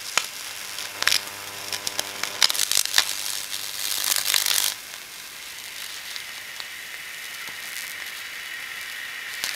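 High-voltage arc from a microwave oven transformer crackling and buzzing with mains hum where a tin can of water meets the earth. About five seconds in the crackling and hum die down to a quieter steady hiss.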